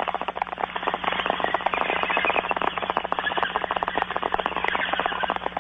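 Bong hit sound effect: water bubbling and gurgling rapidly through a bong, over a steady low hum.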